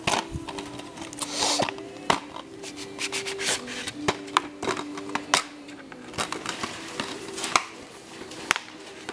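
Hands rummaging for and handling plastic DVD cases: a string of irregular clicks and knocks with a brief rustle about a second and a half in.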